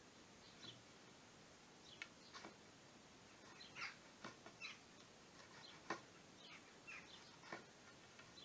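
Faint, scattered small-bird chirps over a quiet background, with a few sharp light ticks from the timber being handled.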